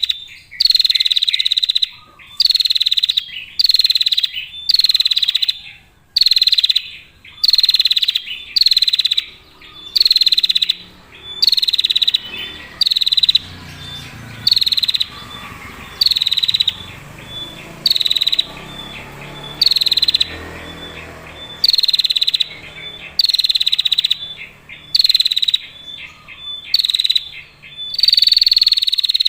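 Female prinia (prenjak) giving its 'ngetir' call: short, rapid buzzy trills near 4 kHz, repeated about once a second, fainter for a stretch in the middle.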